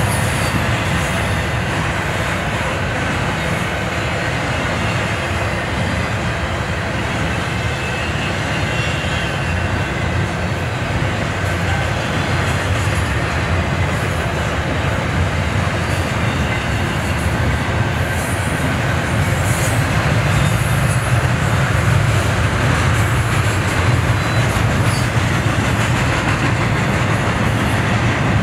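Double-stack intermodal well cars of a Union Pacific freight train rolling past, a steady low rumble and rattle of steel wheels on the rails. It grows a little louder in the second half.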